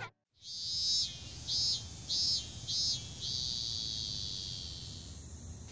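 High-pitched chirping: one short call, then three quick chirps about half a second apart, then a long trill that slowly fades.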